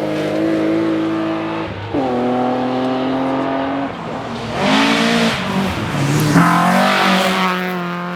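Historic rally car engine at high revs on a stage, with a sharp drop in pitch a little under two seconds in and again after about six seconds as it shifts up. Midway it briefly lifts off, then accelerates hard again before the engine note eases away at the end.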